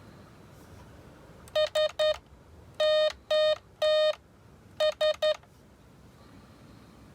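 Electronics kit oscillator sounding SOS in Morse code: three short beeps, three long, three short, in a buzzy electronic tone.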